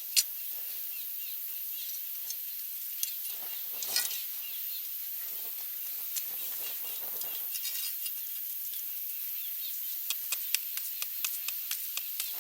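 A run of sharp clicks, quick and irregular, at the start and again from about ten seconds in, over a steady high hiss, with short rattling chirps about four and seven seconds in.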